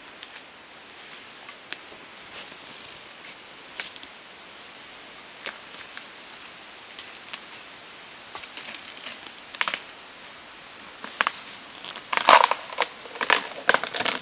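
Birch bark being peeled from the trunk: scattered small cracks and snaps, building near the end into a louder run of crackling and tearing.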